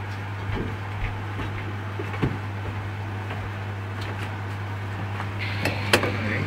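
Deep-frying prawn balls in a wok: a steady hum and hiss, with scattered light clinks of a metal slotted spoon and wire strainer against the wok as the balls are lifted out.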